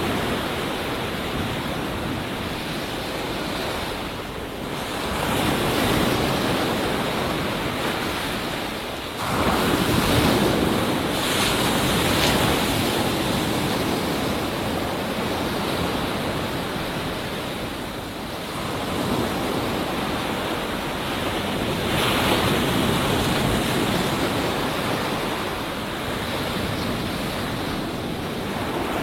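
Ocean surf breaking on a beach: a continuous wash of white water that swells and ebbs. One wave crashes sharply about a third of the way in, and others build more gently.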